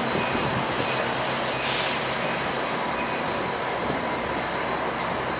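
GE P42 diesel-electric locomotive running steadily as the passenger train moves slowly through the station. A short hiss of air sounds about two seconds in.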